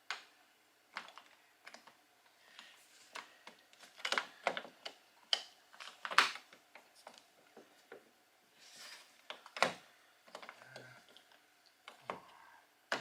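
Irregular small clicks and knocks of hard plastic car door-handle parts being handled and pushed into place, with a short rub about nine seconds in.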